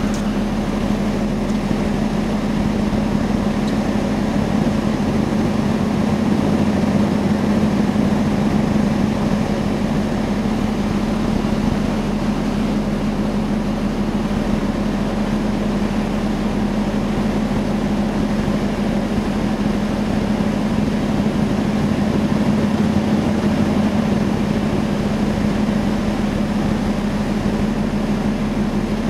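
Steady drone of a ferry's engines and machinery heard from the deck: a strong low hum over an even wash of noise, unchanging throughout.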